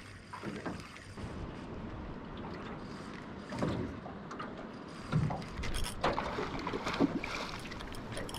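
Water lapping and slapping against the hull of a small aluminium boat, a steady wash of noise with a few short knocks and splashes about midway and toward the end.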